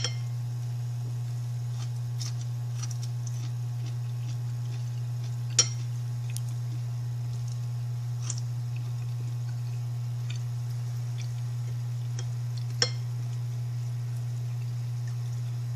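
A few sharp clinks of ceramic dishes, a small bowl and plates knocked while eating by hand, the loudest about five and a half and thirteen seconds in. A steady low hum lies under them throughout.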